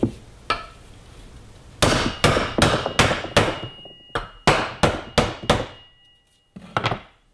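Hammer blows on a sacrificial wood block, driving a new 6205-2RS ball bearing down into its bore in a GE washing machine transmission brake assembly. One light tap is followed by about ten sharp blows at two to three a second with a short pause, then a last double knock near the end. A faint metallic ringing tone hangs under the later blows.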